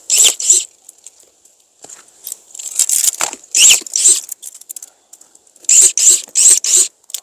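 Pruned Japanese apricot branches and twigs rustling and scraping in short bursts: once at the start, a longer run around the middle, and four quick ones near the end.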